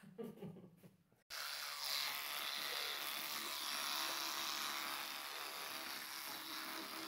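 Electric toothbrush buzzing steadily while brushing teeth. It starts about a second in.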